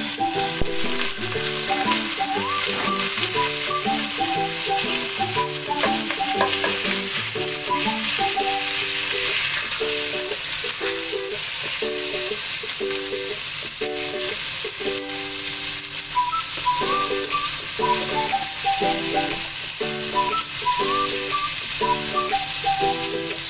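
Sliced pork sizzling in hot cooking oil in a pot, the sizzle starting suddenly as the meat goes in, with a metal spoon stirring it. Background music with a repeating melody plays over it.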